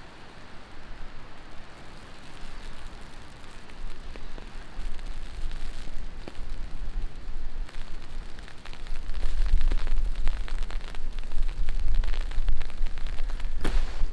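Heavy rain falling, a steady hiss with many sharp drop ticks close by. From about halfway through it grows louder and a deep low rumble joins it.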